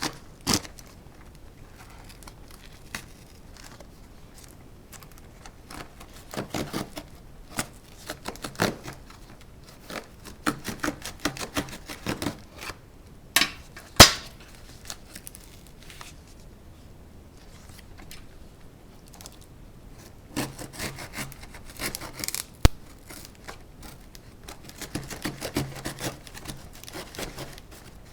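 A cardboard shipping box being unpacked by hand: intermittent tearing, rubbing and scraping of tape and packing material, with scattered clicks and a sharp knock about halfway through.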